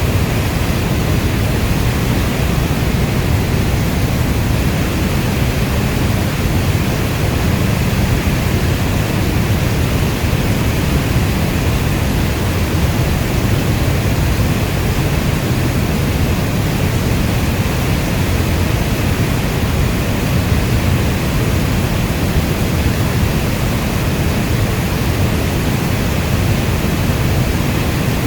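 Steady heavy rainfall: a dense, even hiss with a deep low rumble beneath it, and no single drops or thunderclaps standing out.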